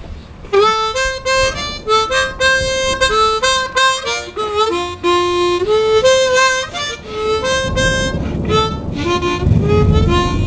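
A B-flat harmonica playing an improvised melody of single notes stepping up and down in pitch, starting about half a second in. A low rushing noise rises underneath near the end.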